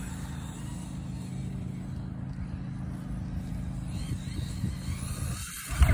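Radio-controlled car driving across a grass field, heard faintly under a steady low rumble. A sudden louder rumble comes in right at the end.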